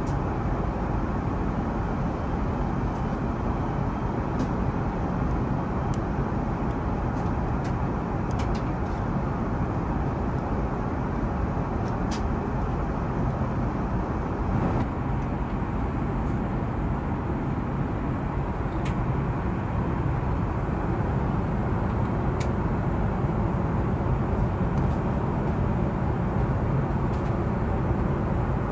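Steady low roar of an Airbus A380 cabin in flight, airflow and engine noise, with a few faint clicks.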